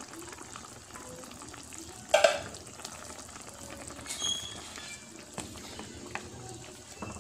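A wooden spatula stirring chicken and pineapple chunks in simmering broth in a metal pan, over a steady bubbling hiss. There is one sharp knock about two seconds in.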